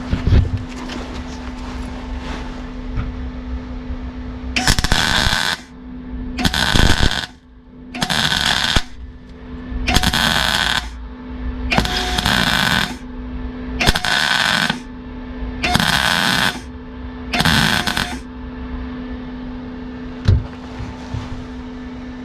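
Welder laying short stitch welds on a Rover P6 body panel: eight crackling bursts of about a second each, about two seconds apart, over a steady hum. The old body metal is thin and poor, and the weld is blowing through it in places.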